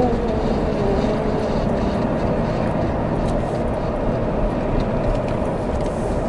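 Vehicle driving along a gravel mountain track, a steady rumble of engine and tyres heard from inside the cab. A faint held chanted note fades out in the first second or so.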